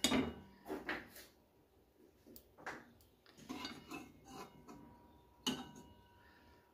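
A metal serving spoon clinking and scraping in a pan as curry is dished onto a plate, making scattered light clinks. The loudest clink comes about five and a half seconds in, with a brief metallic ring.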